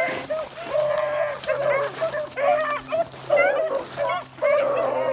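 A pack of beagles baying on a rabbit's trail, several hound voices overlapping in short, repeated cries.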